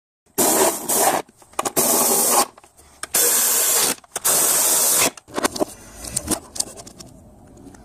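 Power ratchet running in four bursts of just under a second each, spinning bolts down by the strut tower. A few light clicks and handling knocks follow near the end.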